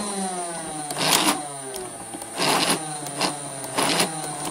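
Nerf RapidStrike blaster motor whine falling slowly in pitch as the motor spins down. Four short clicking, rattling bursts of mechanism noise come about one, two and a half, three and four seconds in.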